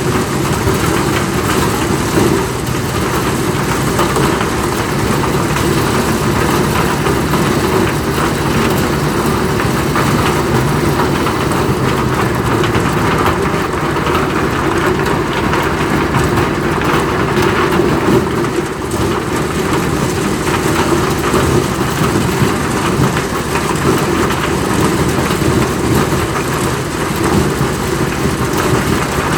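Engine-driven corn sheller running steadily, its motor and threshing drum making a continuous loud machine noise.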